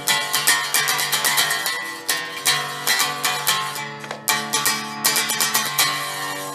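Hick Stick, a home-built cigar box guitar, played in a run of quick plucked notes. The last note rings on and fades out near the end.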